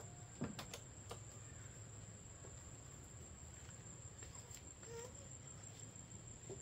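A faint, steady high-pitched insect drone over quiet outdoor ambience, with a few sharp clicks in the first second and a brief faint chirp about five seconds in.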